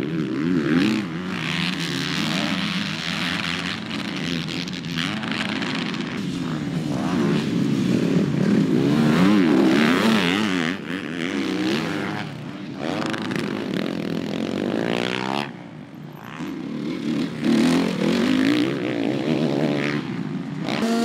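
Motocross dirt bike engines racing past, revving up and falling back over and over as the riders work the throttle through corners and jumps. The sound drops away briefly about fifteen seconds in.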